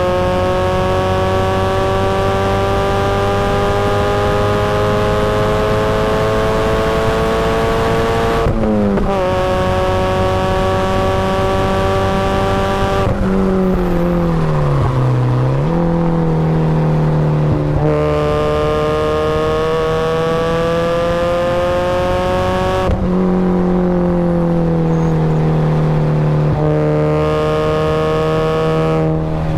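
Supercharged Mazda Miata's four-cylinder engine at race pace, its pitch climbing steadily under acceleration and dropping suddenly at upshifts about eight and a half and twenty-three seconds in. Between about thirteen and sixteen seconds the note falls and wavers as the car slows for a corner, then it climbs again.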